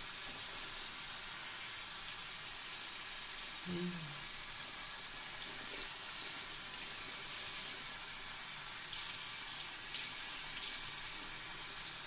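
Tap water running steadily into a ceramic bathroom sink while a soapy luffa sponge is rinsed and squeezed by hand under the stream, with a few louder splashy bursts near the end.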